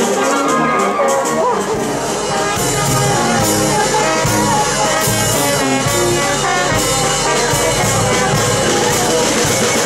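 Brass band playing, sousaphones carrying the bass under a steady drum and cymbal beat.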